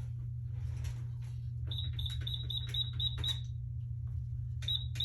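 Electronic beeps: a quick run of about seven short, high beeps with clicks, like buttons being pressed, then two more near the end, over a steady low hum.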